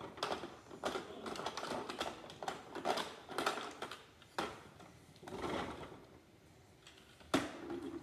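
Plastic toy cars and trucks clattering as they are handled and set down, a run of irregular clicks and knocks, busier in the first half. A single sharp knock about seven seconds in is the loudest.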